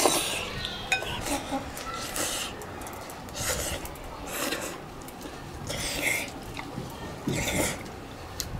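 A person eating hot boiled pumpkin: a string of short slurps and sucked-in breaths, with chewing between them.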